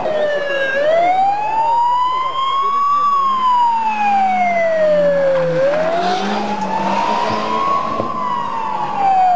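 Siren on a rally course car wailing as the car passes along the stage, its pitch sliding slowly up and down about every five seconds, with the car's engine heard faintly underneath.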